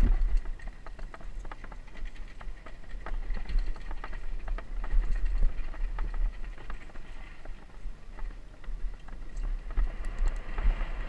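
Mountain bike riding fast down a dirt trail, heard from an action camera mounted on it or the rider: steady wind rumble on the microphone with frequent rattles, clicks and knocks from the bike and its tyres over the rough ground.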